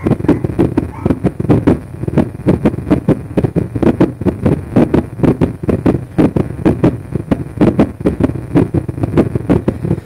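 Heartbeat of a small dog with heartworm infection, picked up by an electronic stethoscope on the chest: fast, regular low thumps, several a second, over a rumble of chest and contact noise.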